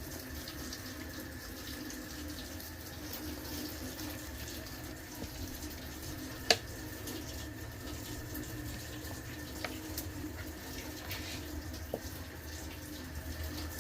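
Water running from a faucet into a sink, a steady rush, with one sharp click about six and a half seconds in and a few fainter clicks later.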